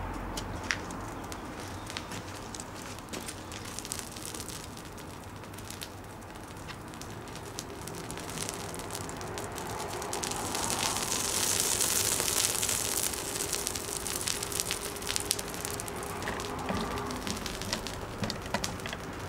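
Petrol-soaked gingerbread man figure burning on a sheet of foil: the flames crackle with many small pops over a steady hiss. The hiss swells about halfway through and then eases as the fire dies down.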